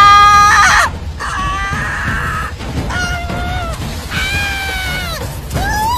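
A person's high-pitched screams: a loud held cry at first, then four or five long, drawn-out wails, each falling away at its end.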